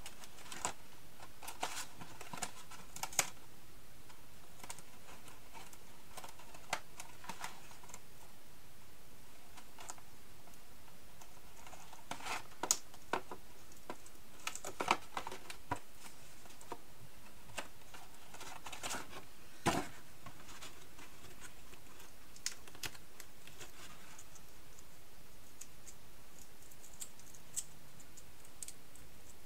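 Cardstock being handled and folded by hand: scattered light taps, crinkles and rustles of stiff paper, coming in small clusters with quiet stretches between.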